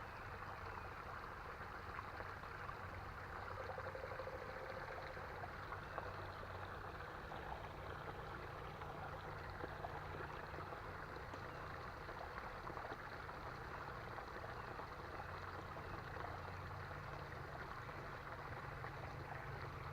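Creek water running steadily with a soft, even rushing, with a few faint clicks.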